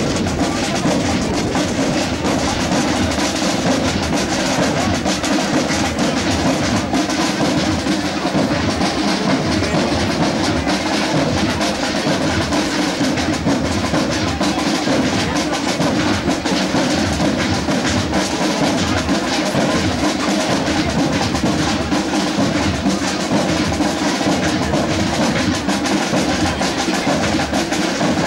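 Military band playing march music, with snare drums over a steady bass-drum beat.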